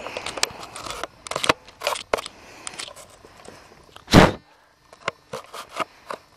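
Crunching and crackling of packed snow, irregular crisp crunches, with one loud thump about four seconds in, after which only a few faint crunches follow.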